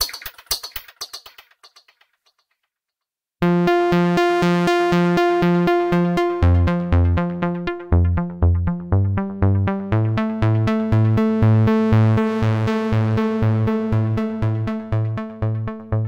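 u-he Diva software synthesizer presets playing. A fast percussive pattern dies away in the first two seconds. After a short gap, a new patch plays a fast-repeating synth pattern, and a pulsing bass line joins about six seconds in.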